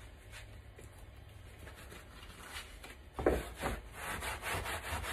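Gloved hands rubbing sawdust off a CNC-cut pine board in quick repeated strokes, starting with a thump about three seconds in. Before that, only a faint rustle as a work glove is pulled on.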